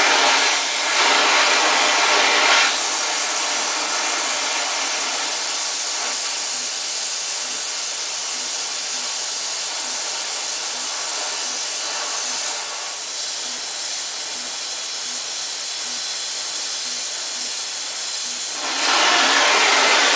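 Oxy-acetylene welding flame hissing steadily from a welding tip on a Harris automatic torch handle as it heats and welds a steel plate. The hiss is louder for the first couple of seconds and again in the last second or so.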